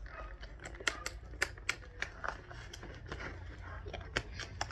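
Action figure box being handled and worked open: irregular sharp clicks and taps of plastic and cardboard packaging.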